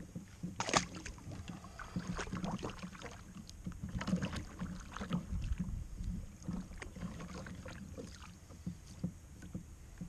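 Irregular knocks, clicks and rustles of a person handling a fish and gear aboard a fishing kayak.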